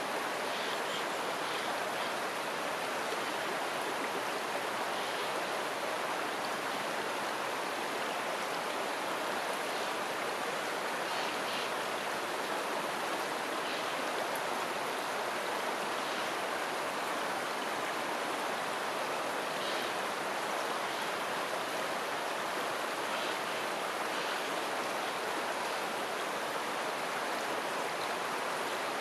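River water flowing, a steady rushing sound with faint, brief brighter splashes now and then.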